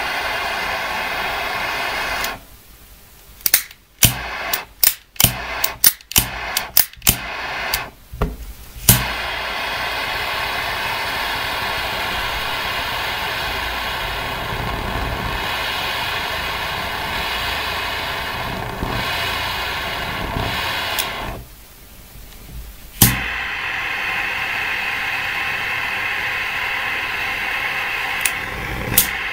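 Triple-jet butane torch lighter burning with a loud, steady hiss. It goes out about two seconds in, then clicks about ten times in quick succession before the jet catches and hisses again. Near the end it goes out once more and relights on a single click.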